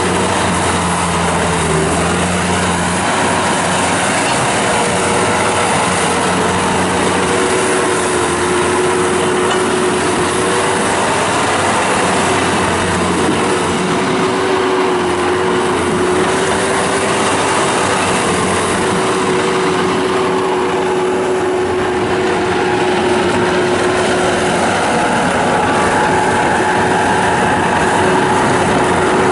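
Bobcat T190 rubber-track skid steer loader running, its diesel engine droning steadily with a whining tone over it.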